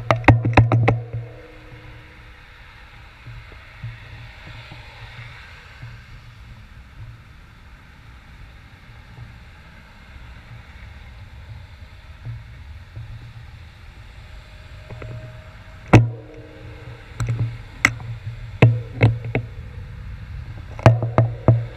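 Sharp knocks and taps on the handlebar-mounted camera: a quick cluster at the start, one hard knock about sixteen seconds in, then more through the last few seconds. They sit over low, steady traffic noise.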